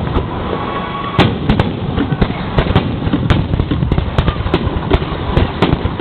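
Fireworks display heard close to the launch site: shells going off in rapid, irregular succession, many sharp bangs over a continuous rumble.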